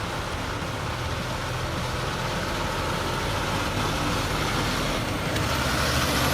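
Heavy truck engine running steadily, growing gradually louder, with a wide rumble of road and engine noise.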